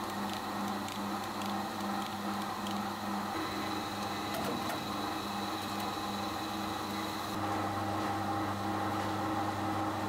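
Production-line machinery running: a steady hum that pulses about three times a second, with a faint high whine and scattered light clicks. About seven seconds in the whine stops and a deeper hum gets stronger.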